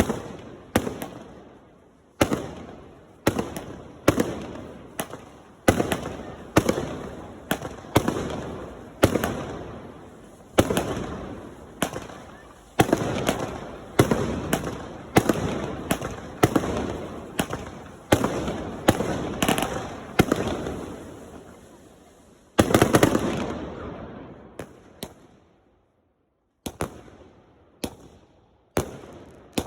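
Fireworks going off in a steady barrage: sharp bangs about once a second, each trailing off in a crackle. A denser, longer burst comes about 23 seconds in, then a short break and a few last bangs.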